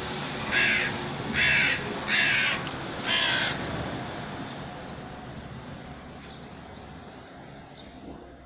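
A crow cawing four times in quick succession, harsh and rasping, over a steady rushing background noise that slowly fades away.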